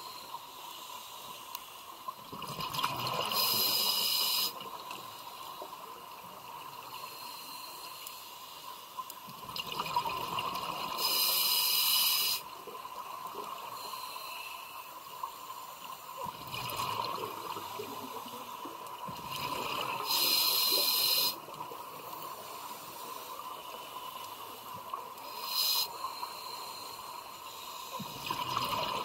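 Scuba diver breathing through a demand regulator underwater: a drawn-in inhalation, then a loud rush of exhaled bubbles. The cycle repeats roughly every eight seconds, with three long bubble bursts and a short one.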